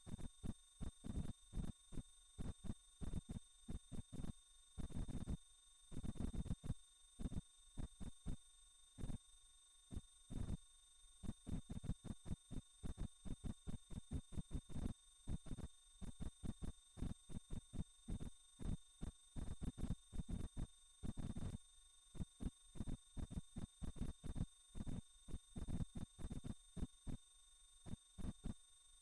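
A single synthesized pure tone, very high-pitched and steady in pitch, pulsing evenly in loudness several times a second.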